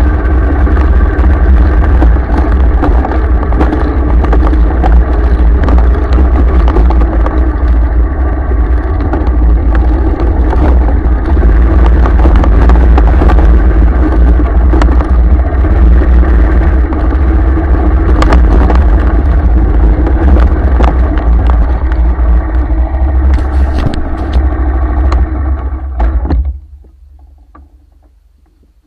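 Vehicle engine running while driving over a rough dirt track, with heavy wind rumble on the microphone; the engine and wind noise cut off abruptly about 26 seconds in.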